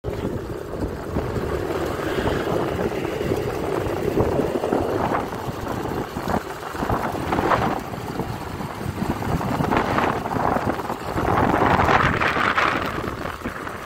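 Riding noise of a motor scooter moving along a road: wind rushing over the microphone, with tyre and engine noise underneath.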